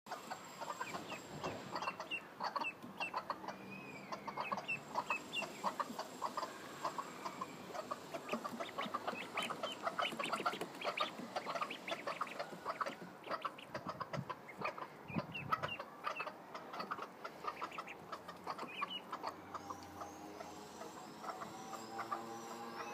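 Bantam hens clucking, many short calls in quick succession, with the high peeping of the ducklings they are mothering mixed in. Music comes in near the end.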